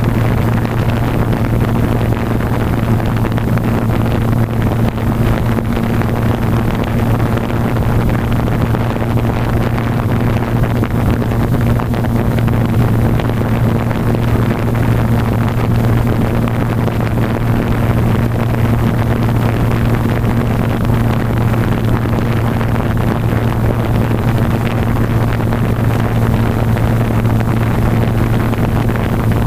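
Blade 350 QX quadcopter's four brushless motors and propellers, heard from the GoPro mounted on the aircraft: a steady hum with propeller wash rushing over the microphone.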